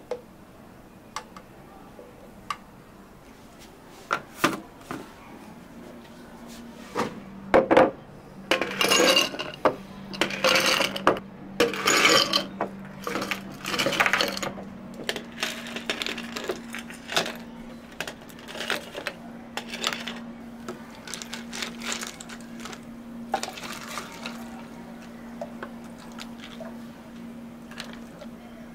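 Hard clinks and rattles of cups, utensils and containers during cafe drink-making: scattered single clicks, then a dense run of rattling in the middle, over a steady low machine hum.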